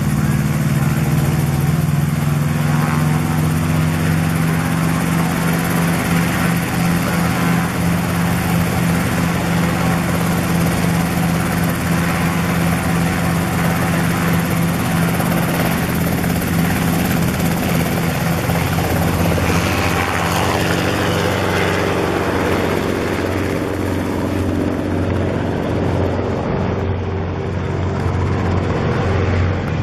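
Small helicopter's engine and rotor running loud and steady close by. About twenty seconds in its steady pitch shifts lower, and near the end the sound thins out.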